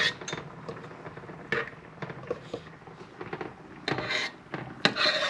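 Kitchenware handled at a pot: a few sharp knocks and clinks spread out, then two short scraping sounds about four and five seconds in.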